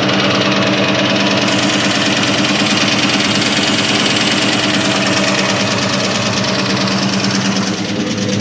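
2003 Ford Mustang SVT Cobra's supercharged 4.6-litre V8 idling steadily with a fast, even knocking: piston slap from badly scored pistons.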